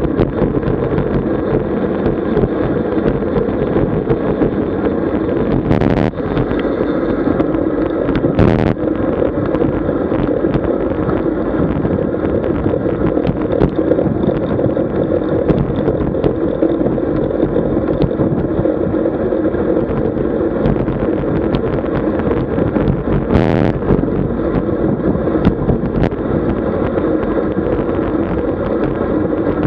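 Steady wind rush and road noise on the microphone of a camera riding along on a road bike, with three short sharp knocks.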